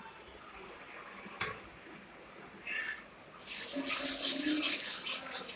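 Curd going into hot curry gravy, a loud sizzling hiss for about a second and a half, starting about three and a half seconds in and then dying away. A single sharp click comes earlier.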